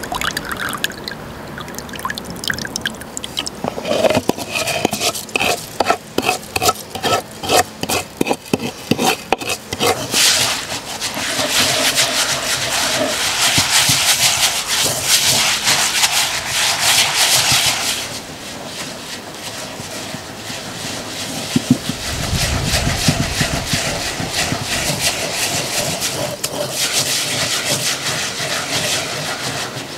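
Wooden pestle working millet in an earthenware bowl: a run of pounding strokes, about two a second, then steady scraping and rubbing of the grain against the clay.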